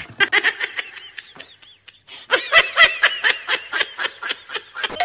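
Human laughter: a rapid string of short laugh pulses, a softer run first, then a louder burst of laughing from a little past halfway.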